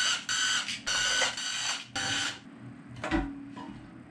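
Handheld cordless power tool spinning out bolts on an LS engine in about five short trigger bursts, each a steady whine. After that, a few light metal knocks as a loosened part is handled.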